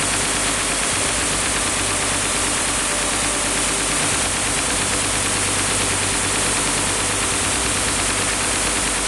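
Sustained fire from a belt-fed machine gun right beside the camera, so loud that the recording distorts into a steady, unbroken wall of noise.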